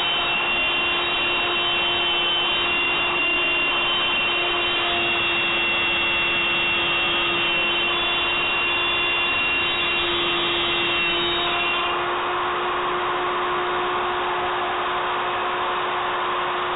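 Wood router running as the spindle of a homemade CNC router, its bit cutting a profile in MDF: a steady high whine over cutting noise. About twelve seconds in the highest whine drops away and the sound settles lower.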